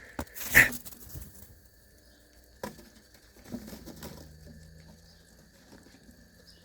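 A single shot from an FX Impact .22 PCP air rifle: a short sharp crack about half a second in, followed by a couple of faint clicks.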